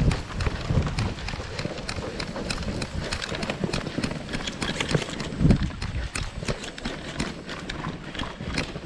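Irregular footfalls and rattling gear of a player on the move, with scattered sharp clicks and knocks over a low rumble of handling or wind on the microphone; one heavier thump about five and a half seconds in.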